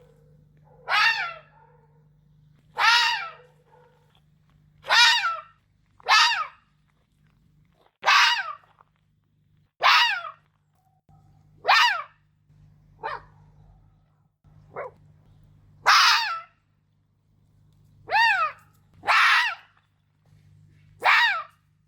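Red fox barking: a series of about a dozen short, loud barks every one to two seconds, each one dropping in pitch.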